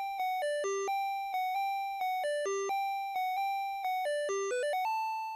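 Casio Casiotone MT-88 keyboard auto-playing a ROM-pack melody: a lone line of electronic notes, each dying away, with no accompaniment. A quick run of notes about four and a half seconds in leads into one held higher note that ends the tune.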